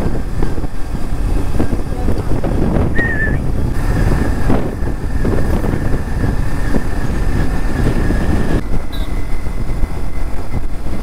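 Motorcycle cruising at road speed: a steady rumble of engine, tyres and wind on the bike-mounted microphone.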